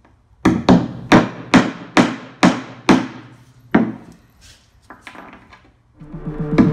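Claw hammer blows on a plywood board: eight sharp strikes, each with a short ringing tail, about two a second, followed by a few lighter taps. Music begins near the end.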